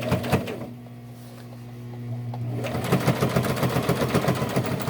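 Sewing machine top-stitching a jeans hem. The motor hums steadily at first, then from about halfway the needle's rapid, even stitching ticks come in and keep going.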